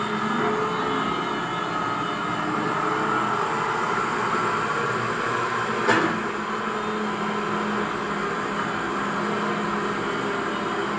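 RC model CAT 336D excavator running: its motors give a steady mechanical whine and hum. There is a single sharp knock about six seconds in.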